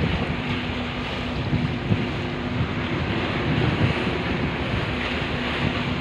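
Wind buffeting the microphone in gusts over choppy sea waves washing and breaking against a concrete breakwater, with a faint steady low hum underneath.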